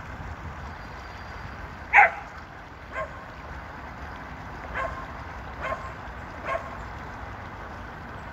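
A dog barking: five short barks spread over about five seconds, the first much louder than the rest, over a steady low rumble.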